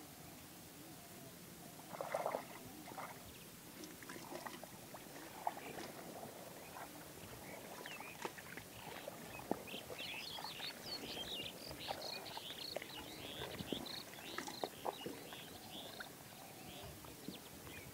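Hands splashing and squelching in shallow muddy water while groping through mud and grass for fish, with irregular small splashes and clicks and a louder splash about two seconds in.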